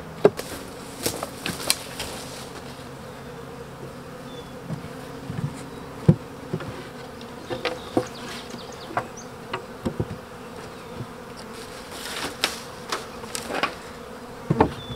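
Honey bees buzzing steadily around an open hive, with frequent short wooden knocks and clicks as hive frames and boxes are handled; a cover is set down on the hive near the end.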